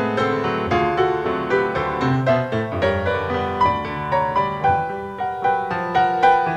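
Background music: a piano playing a gentle melody, about three or four notes a second, over held lower notes.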